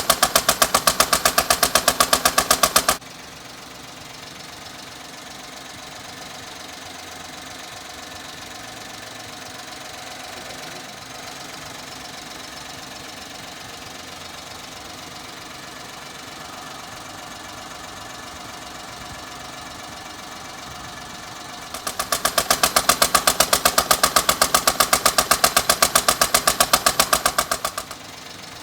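Nissan Pino's small three-cylinder engine making a loud, rapid, even knocking in two runs: one for about three seconds at the start and another for about six seconds starting about 22 seconds in. A steady, quieter engine hum runs in between.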